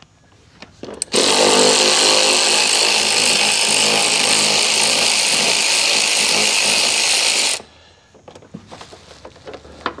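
Cordless drill spinning a socket on a long extension against a door hinge bolt to back it out. It starts after a few light clicks, runs steadily for about six seconds, then stops abruptly.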